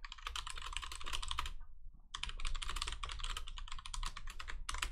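Rapid typing on a computer keyboard, two runs of fast key clicks with a short pause between them.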